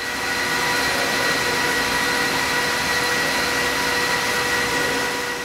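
Metal-turning lathe running as a workpiece is turned: a steady whine over a broad hiss that rises in over the first half second and drops away near the end.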